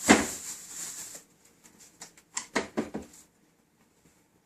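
Food items being handled in an open fridge: a bump, then about a second of plastic-wrap rustling, then a few light knocks and clicks about two seconds in.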